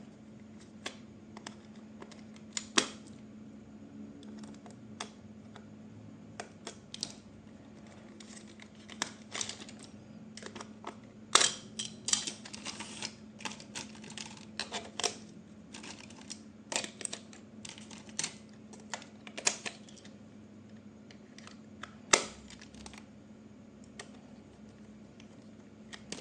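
Irregular clicks, taps and short rustles of hands handling plastic remote-control toys and their packaging, a few of them sharper and louder, over a faint steady hum.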